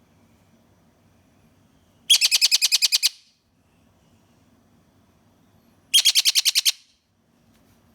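Young parrot calling in two bursts of rapid, evenly repeated shrill notes, about ten a second, each burst lasting about a second, the first about two seconds in and the second about six seconds in.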